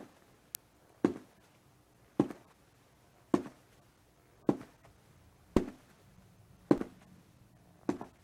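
Footsteps: slow, evenly paced single steps, about one a second, seven steps in all, each a sharp footfall with a short room tail.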